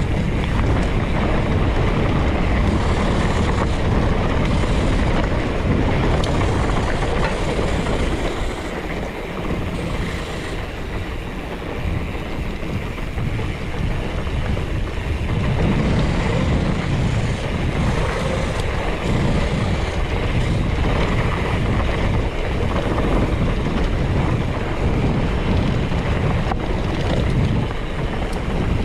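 Wind rushing over the microphone and the mountain bike's tyres rolling over a dry dirt trail at speed, easing briefly about ten seconds in.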